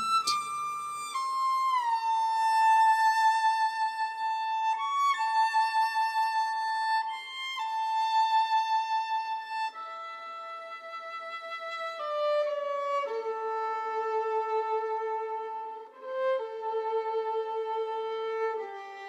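Solo violin playing a slow melody of long held notes, sliding from one note to the next.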